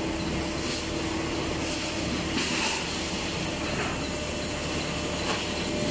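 Steady machinery hum of a hydraulic sink-drawing press running in a metal-pressing workshop. A low steady tone fades out a little after two seconds in, and there are a few short hisses, the clearest one a little past two seconds in.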